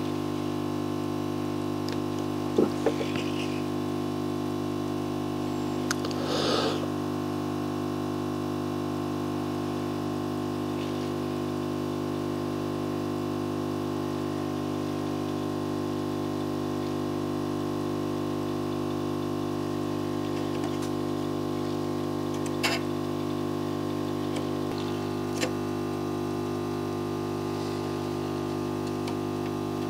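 Hot-air rework station blower running steadily with a many-toned hum, blowing air onto the circuit board. A few light clicks and taps of tools on the board come about two and a half, six and a half, twenty-three and twenty-five seconds in.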